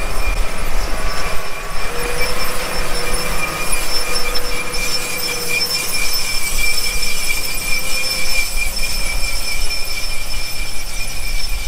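New Holland tractor pulling a White row-crop planter past while planting corn: a steady high whine over engine and machinery noise, with heavy wind rumble on the microphone.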